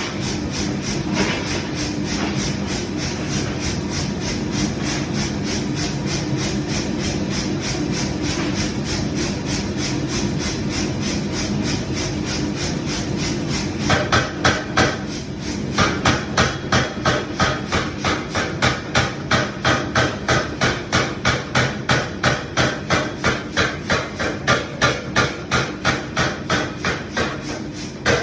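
Rapid, regular hammer blows forging heavy iron pipe over a steady machine hum. About halfway through the blows turn much louder and more distinct, at roughly two to three a second.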